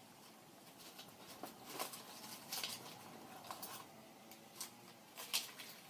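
Rummaging through a purse: soft rustling with a handful of scattered light clicks as small items are handled.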